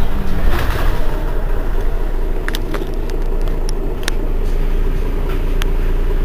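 Mercedes-Benz Citaro city bus engine idling at a stop: a steady low rumble, with a few sharp clicks about two and a half to four seconds in.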